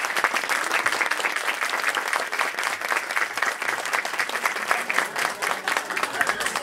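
Audience applauding, many hands clapping thickly and steadily.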